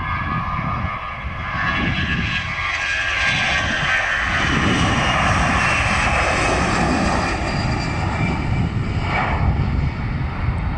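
Airbus A320-214's twin CFM56-5B turbofan engines at takeoff thrust as the airliner rolls, lifts off and climbs away: a steady rumble with a high whine that drops slowly in pitch, growing louder over the first few seconds and then holding.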